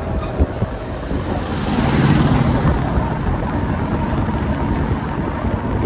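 Motorcycle riding along a road, heard from the pillion seat: engine running with road and wind noise on the microphone, swelling louder for a moment about two seconds in.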